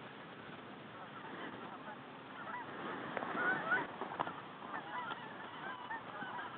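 A flock of birds calling overhead: many short overlapping honking calls, growing denser and louder after about two and a half seconds. There are a couple of short sharp knocks around four seconds in.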